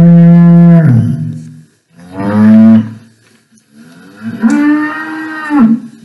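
Cow mooing three times: a long moo that ends about a second in, a shorter one about two seconds in, and a third from about four seconds in until near the end.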